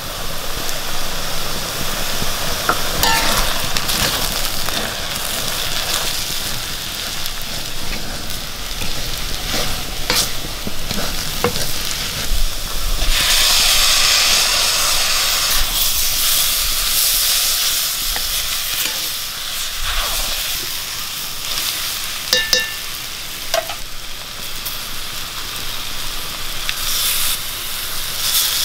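Onions and spices frying in oil in a cast-iron kadai, sizzling steadily, with a spoon stirring and scraping against the pan now and then. The sizzle grows louder for a few seconds midway as chopped tomatoes go into the hot pan.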